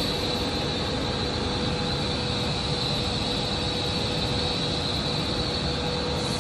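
A BRM MN 60X900 blown-film plastic bag machine running: a steady, unbroken machine noise with a constant hum and a high whine.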